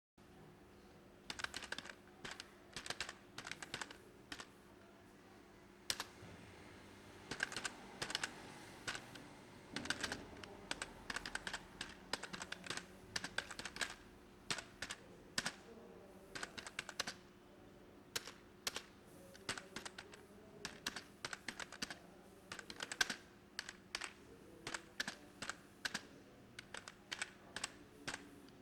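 Typing on a computer keyboard: quick runs of key clicks in irregular bursts, with short pauses between runs.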